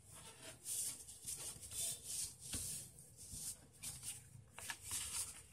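A sheet of paper being handled and folded: a string of short, soft rustling swishes as it slides and is creased on a tabletop.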